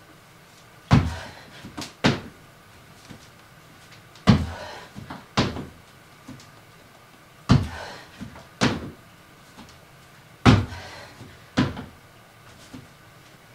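Thuds of a person landing on an exercise mat during donkey kicks, coming in pairs about a second apart and repeating roughly every three seconds.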